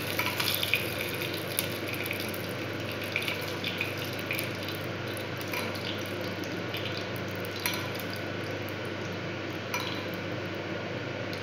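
A steel spoon clinks and scrapes against a small steel pan as a wet tempering of mustard seeds and chillies is spooned out, giving scattered light clicks over a steady background hiss and hum.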